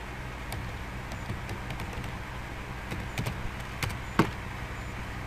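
Computer keyboard keys clicking irregularly as a web address is typed in, with one louder click about four seconds in, over a steady low hum.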